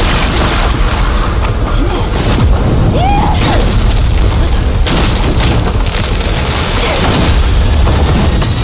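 Animated battle sound effects: a dense, continuous run of booming impacts and rumble, with a few sharper hits, over an orchestral score.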